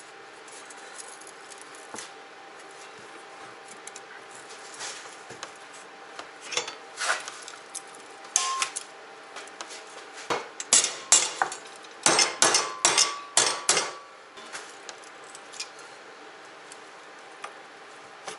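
16-gauge sheet steel being bent and worked in a bench vise: scattered metallic clanks, then a quick run of about a dozen sharp metal strikes, some ringing briefly, about two-thirds of the way through.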